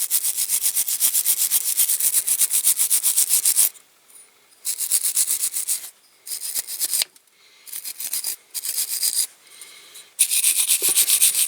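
Hand wire brush scrubbing old paint off a diecast metal car body in fast back-and-forth strokes with a high hiss. It comes in several bouts with short pauses between them, the longest at the start and the last starting near the end.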